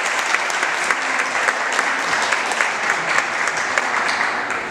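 Audience applauding, a dense patter of many hands clapping, easing off slightly near the end.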